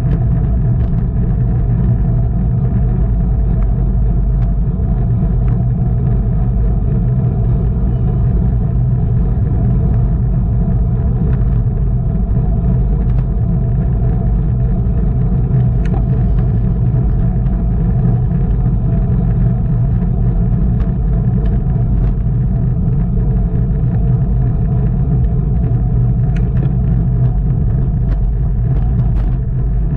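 Steady low rumble of wind and road noise from a bicycle ridden at race speed in a criterium, with a few faint ticks.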